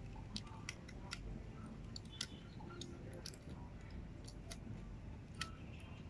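Small plastic Rubik's cube clicking as its layers are twisted by hand: irregular sharp clicks, about one or two a second.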